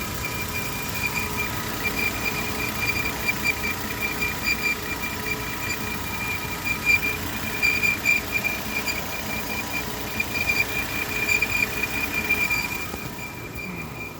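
High-pitched steady whine from under the engine of a 2013 Volvo XC60 running warm, over the engine's running sound; the whine only starts once the engine has warmed up and is not the usual loose-belt squeal. It weakens about a second before the end.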